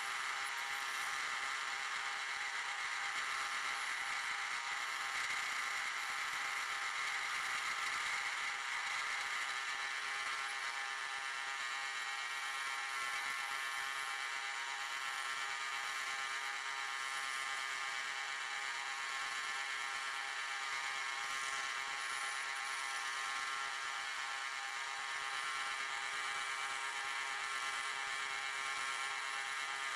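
Bandsaw running with a steady whir as its blade cuts through a piece of wine barrel head.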